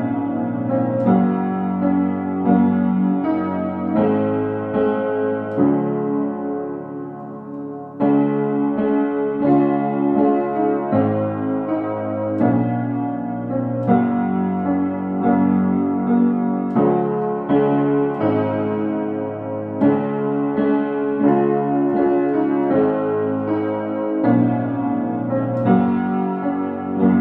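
Solo piano music, a flowing piece of sustained chords; one phrase fades about seven seconds in and a new phrase starts a second later.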